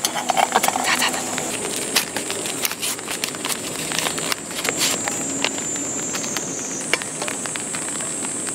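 Steady high-pitched chorus of insects, its pitch and level shifting slightly a few times, with scattered clicks and knocks over it, busiest and loudest in the first couple of seconds.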